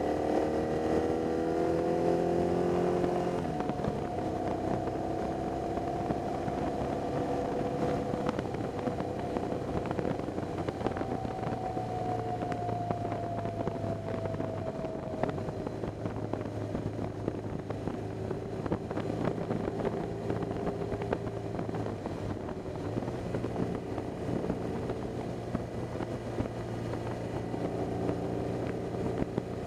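BMW R 1200 GS's flat-twin boxer engine running as the bike is ridden, over a steady rush of wind and road noise. Its pitch eases down over the first few seconds and again around the middle, then holds steady.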